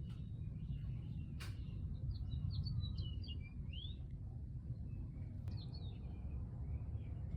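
Small birds chirping, a quick run of short rising and falling notes about two seconds in, over a steady low rumble, with a sharp click about a second and a half in.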